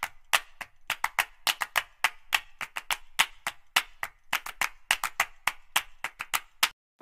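Rapid series of sharp, irregular taps, several a second, stopping shortly before the end.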